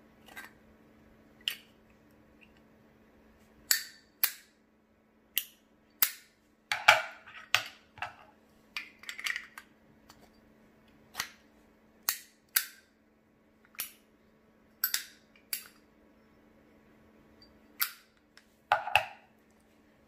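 Irregular sharp metallic clicks and clacks of Zippo lighter inserts being pulled out of and pushed back into their metal cases, with a few quick clusters of clicks.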